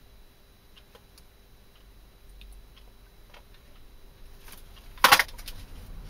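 Small hinged metal mint tin being handled on a workbench: faint scattered ticks, then one short sharp metallic clack about five seconds in as it is set down.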